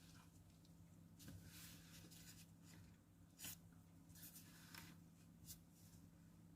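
Near silence: faint room hum with a few soft, brief scrapes and clicks.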